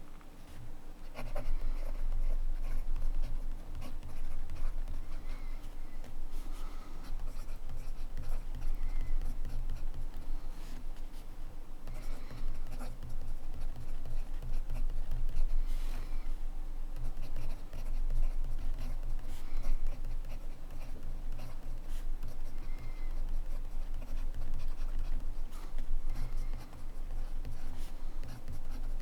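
Montblanc Meisterstück 144 fountain pen nib scratching across paper in continuous handwriting, with brief pauses between strokes.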